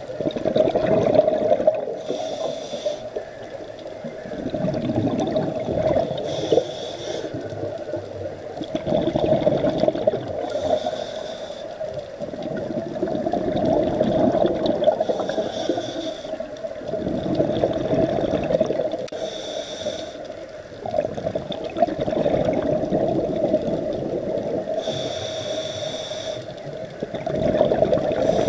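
Scuba diver breathing through a regulator underwater: a short hiss of inhaled air, then a longer rush of exhaled bubbles, repeating about every four to five seconds, six breaths in all, over a steady low hum.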